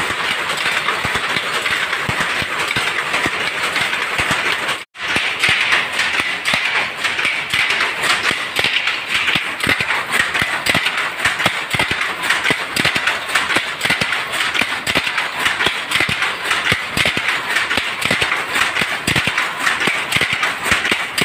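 Underpick power loom weaving a saree, running with a fast, continuous clatter of shuttle picks and reed beat-up. The sound breaks off for a moment about five seconds in, then carries on.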